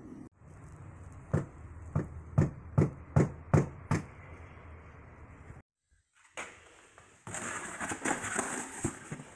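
A run of about seven sharp knocks, roughly two a second, over a steady low noise; after a short break, a busier stretch of hiss with many small clicks and rattles.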